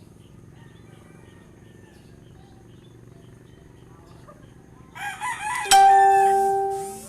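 A rooster crowing once, about five seconds in, the crow ending in a long held note that fades away.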